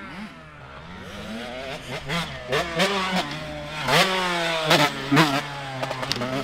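125cc two-stroke motocross bike engine revving hard around a dirt track, its pitch climbing in repeated rising sweeps with short sudden drops between them as the throttle is worked through jumps.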